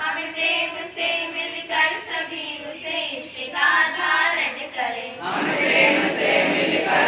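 Schoolgirls singing a prayer together in held, steady notes. About five seconds in, a large group of students joins in, a louder mass of many voices in unison.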